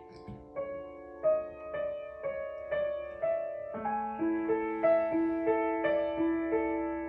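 Upright piano played softly: a slow, even melody of single notes, about two to three a second, with lower held notes coming in about four seconds in.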